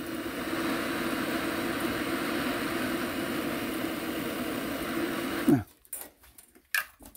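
Handheld gas torch burning with a steady hiss, its flame heating a brass collar on a fuel tank for soldering. It cuts off suddenly about five and a half seconds in, followed by a few light clicks.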